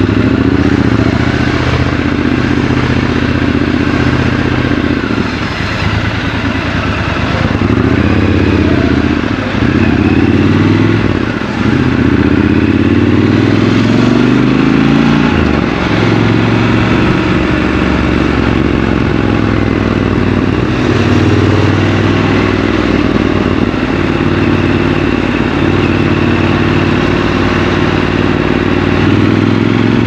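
Triumph Scrambler 1200 XC's 1200 cc parallel-twin engine heard from the rider's seat in city riding. The revs climb and drop several times in the first half, then the engine runs at a fairly steady pace.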